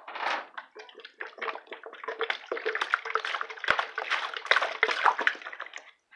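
Water poured from an upturned plastic bottle splashing into a dog's water bowl; the pouring stops shortly before the end.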